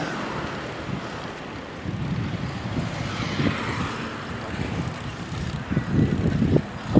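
Wind buffeting the microphone and road traffic noise while riding a bicycle, with a swell of passing-traffic hiss about halfway through.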